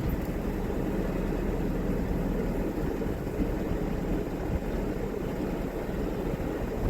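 Narrowboat engine running steadily at low revs.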